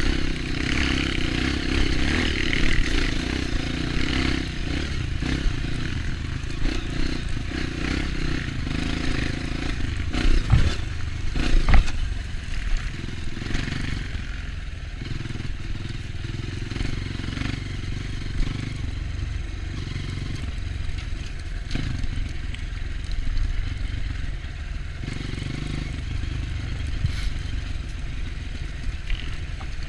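Dirt bike engine running steadily while riding a trail, the engine note shifting up and down, with a few sharp knocks and rattles about a third of the way in.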